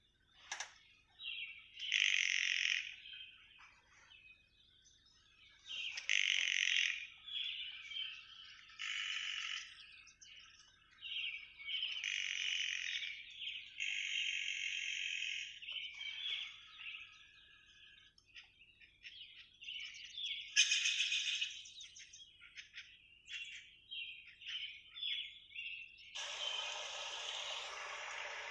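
Birds calling and singing in a forest: short songs and trills one after another, with pauses between them. About two seconds before the end a denser, steady chorus comes in.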